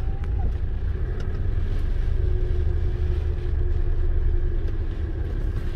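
Strong storm wind and heavy rain, heard as a steady low rumble with an even hiss above it.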